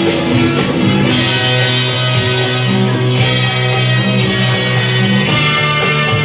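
Loud music playing over a DJ's sound system, steady and without a break.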